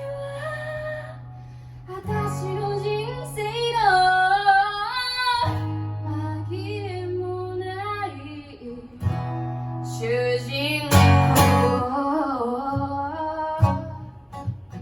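A woman singing a slow melody to acoustic guitar chords, with a harder strum about eleven seconds in.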